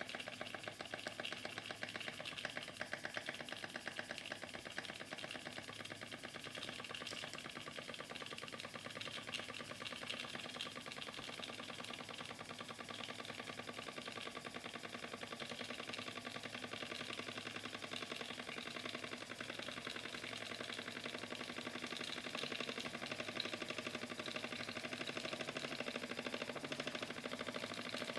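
Mamod SE1A toy steam engine running, its oscillating cylinder giving a rapid, even stream of chuffs too fast to count. It is a little louder in the last few seconds.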